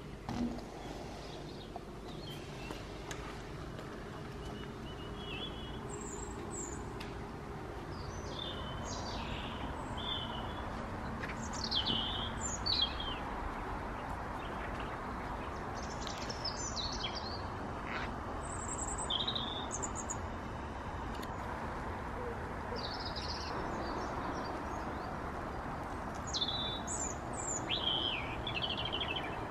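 Garden birds chirping and trilling in short, scattered calls over a steady low outdoor background noise.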